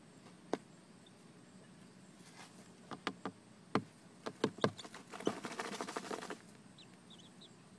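Young chickens dust bathing in dry sand: scattered clicks and scratches of grit, and a rustling spell of flicked sand lasting about a second, about five seconds in. A few faint high cheeps near the end.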